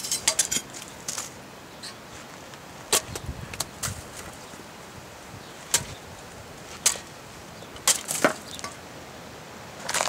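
Steel blade of a Cold Steel Special Forces shovel chopping into fleshy prickly pear cactus pads: a string of sharp, irregular chops and cracks, bunched near the start and again around three and eight seconds in.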